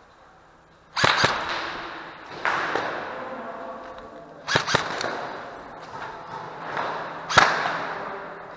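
Sharp cracks echoing through a large hard-walled building. There are six, some in quick pairs, about a second in, near 2.5 s, about halfway and near the end, and each leaves a long reverberant tail.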